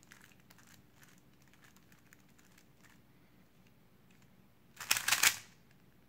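Stickerless 3x3 speedcube being turned: faint scattered clicks at first. About five seconds in comes a quick burst of rapid clicking turns as the last-slot algorithm F' R U R' U' R' F R is executed.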